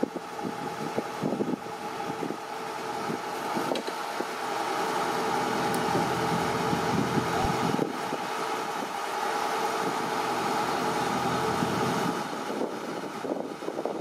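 Kubota DC-105X tracked combine harvester's diesel engine and grain-unloading machinery running, a steady mechanical hum with a held whine that builds over the first few seconds and eases off about twelve seconds in.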